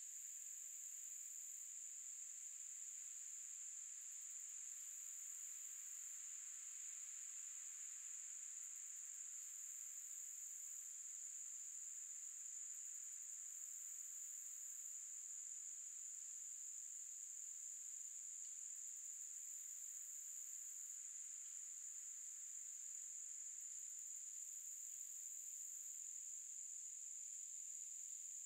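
A summer forest insect chorus: a steady high-pitched chirring that never lets up, with a second, even higher insect call fading in and out every few seconds.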